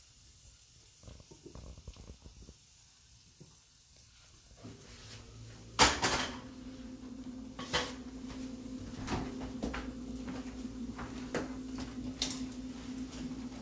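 Kitchen clatter of serving: a spoon knocking against a pan and bowl while sauce is ladled over the plated dish. There is one loud knock about six seconds in, then scattered lighter clinks over a steady low hum that starts a little before it.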